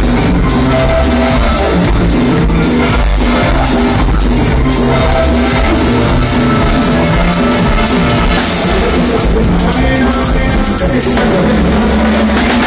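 Live cumbia band playing loud through the stage PA: keyboards and drums with a steady beat, and some singing.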